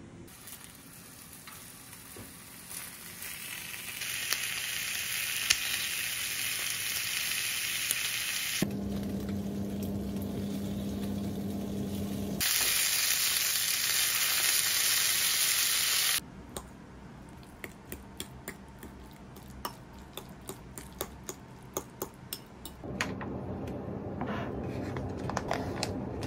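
Strips of bacon sizzling as they fry in a small rectangular metal pan, loudest about halfway through. Then comes a run of light, sharp clicks and taps.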